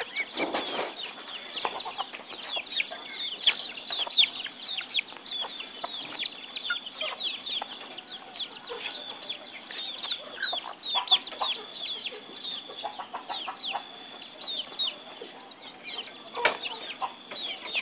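Young chicks peeping over and over, a constant stream of short, high calls that each slide downward in pitch, with a thin steady high tone underneath for most of the time. A couple of brief knocks come near the start and near the end.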